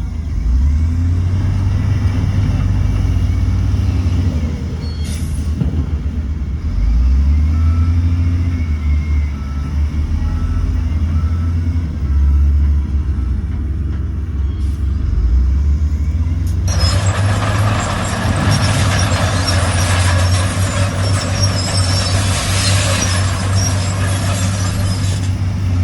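Heavy diesel engine of earthmoving machinery running, rising and falling with load. About two-thirds of the way in, a loud steady hiss starts suddenly and carries on to near the end.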